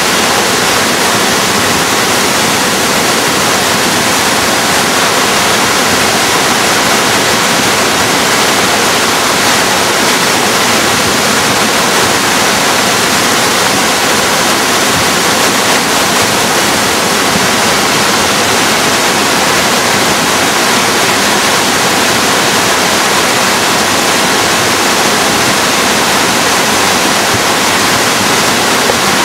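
Nisqually River in flood: fast floodwater rushing in a loud, steady roar of noise that does not change.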